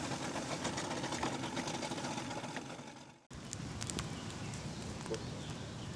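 A steady noisy outdoor background that fades away about three seconds in. After a sudden break, a wood campfire crackles with scattered sharp pops.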